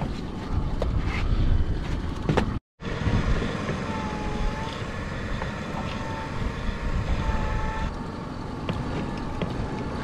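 Boat's pot hauler running with a steady whine that wavers slightly in pitch, stopping about eight seconds in, over a low rumble of wind on the microphone. Before it, a few clicks of the pot being handled.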